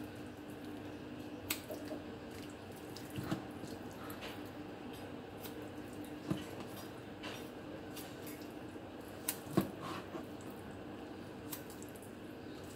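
Kitchen shears snipping skin and fat off raw chicken, with wet squishing of the meat as it is handled: a few sharp snips spread through, the loudest two in quick succession about three-quarters of the way in, over a steady low hum.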